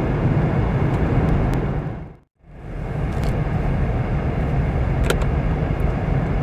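Steady engine and road rumble of a moving car heard from inside its cabin. It fades out to silence about two seconds in and fades back up a second later.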